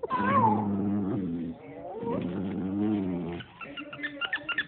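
Small dog growling during tug-of-war play with a plush toy: two long, wavering growls, the first with a high whine at its start, then short scuffling clicks near the end.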